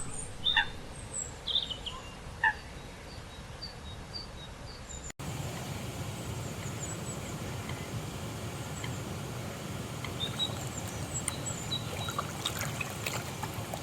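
Small birds chirping in short calls over quiet outdoor ambience. About five seconds in, the sound cuts abruptly to a louder steady rushing noise, with the birds still calling over it.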